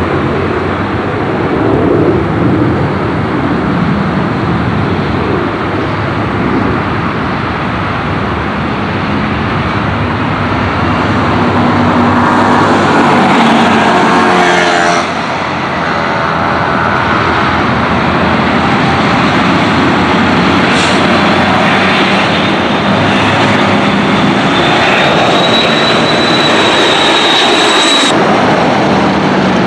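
MD-80 jet airliner on final approach passing low overhead: a loud, steady jet rumble with a falling sweep in pitch about halfway through as it goes over, followed by a high engine whine as it moves away.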